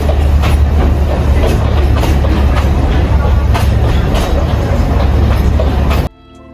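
Alishan Forest Railway sunrise train running: a loud, steady low rumble with irregular clicks from the wheels on the rails. About six seconds in it cuts off abruptly to acoustic guitar music.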